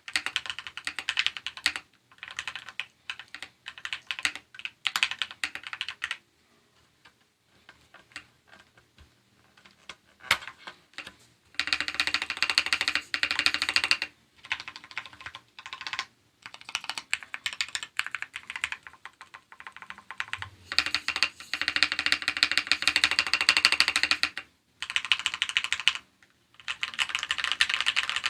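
Typing on an Akko ACR59 mechanical keyboard with lubed switches and stabilizers, a PE foam case mod and a tape mod. Runs of fast keystrokes with short pauses, and a few seconds of near quiet about a third of the way in.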